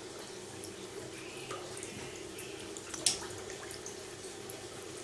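Water trickling and dripping into a catfish tank over a steady low hum, with small splashes and one sharper splash about three seconds in.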